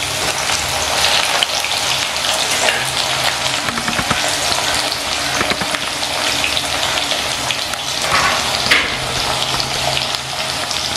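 Potato wedges frying in hot mustard oil in a metal kadai, a steady sizzle, with a few short clicks partway through.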